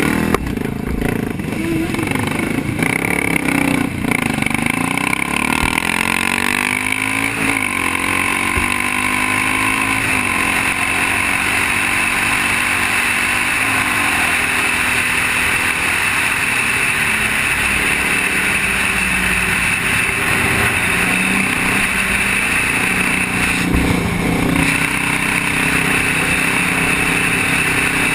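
Motorcycle engine accelerating away, rising in pitch with breaks as it shifts up over the first several seconds, then cruising at highway speed under steady wind noise on a helmet-mounted camera.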